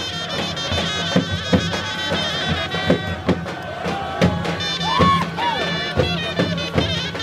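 Traditional folk music played live: loud, shrill reed wind instruments holding steady notes over a drone, with a big drum beating sharp strokes a few times a second. Voices shout and whoop from the crowd about four to five seconds in.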